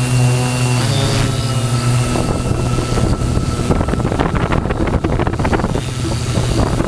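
Tarot T960 hexcopter's six brushless motors and propellers running with a steady tone whose pitch steps a couple of times in the first two seconds. From about two seconds in, wind buffets the microphone and breaks up the tone until near the end.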